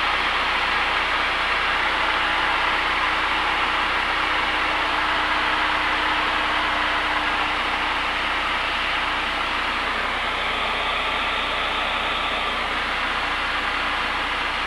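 Cessna 172 cabin noise in flight: the piston engine and propeller running steadily with the rush of air, heard from inside the cockpit.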